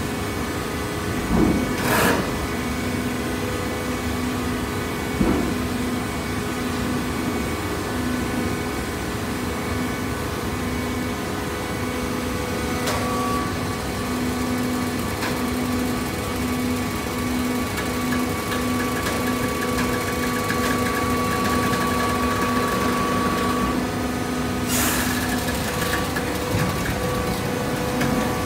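Hydraulic shredded-paper baler running: a steady machine hum with a pulsing tone, broken by a few knocks, about two seconds in and again near the end.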